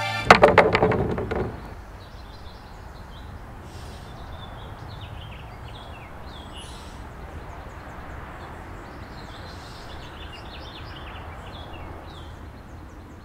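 A sudden loud burst of several sharp cracks that dies away within about a second and a half, then steady outdoor ambience with birds chirping.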